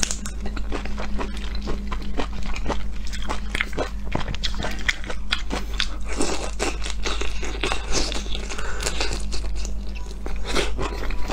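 Close-up mouth sounds of a person biting, sucking and chewing raw prawns in their shells: a dense, continuous run of small crunches and clicks over a steady low hum.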